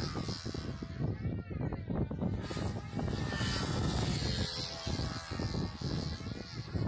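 Control-line stunt model airplane's engine whining as the plane flies outside loops, its pitch rising and falling with each pass.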